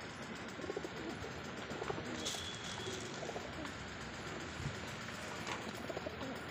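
English Saddle pigeons cooing, a series of soft, low coos, with one short high squeak about two seconds in.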